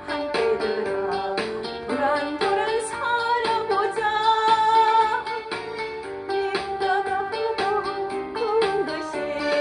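Korean trot song with a backing band keeping a steady beat and a woman singing the melody.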